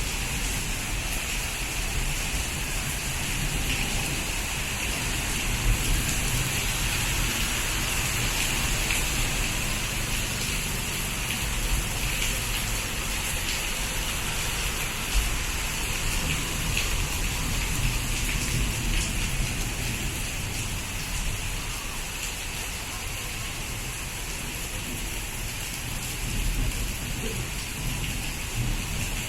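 Steady monsoon rain falling, with a few sharper drop impacts standing out.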